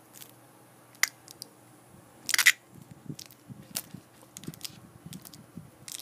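Scattered sharp clicks and crackles of fingers handling a cicada on a crinkly plastic bag, loudest in a short burst of crackling about two and a half seconds in, with soft handling rumble between.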